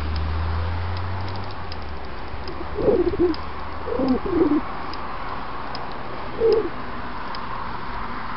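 A pigeon cooing in three short low phrases over a steady hiss; a low hum fades out in the first two seconds.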